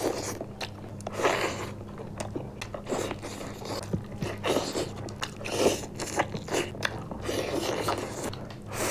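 Close-up eating sounds: people biting into and chewing fried chicken pieces, an irregular run of crunches and bites.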